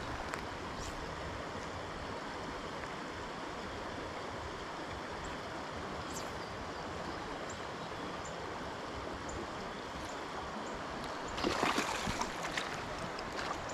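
Shallow creek water running steadily over rocks, a constant rush; about eleven and a half seconds in, a brief louder splash on the surface.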